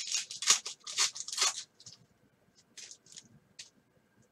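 Foil wrapper of a trading card pack crinkling and tearing as it is opened, in a quick run of crackly rustles over the first couple of seconds, then a few short rustles of the cards being slid out and handled.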